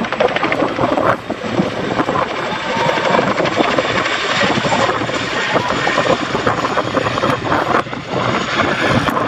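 RAF Chinook helicopter's tandem rotors beating loudly with the rapid, heavy blade slap known as the "wokka".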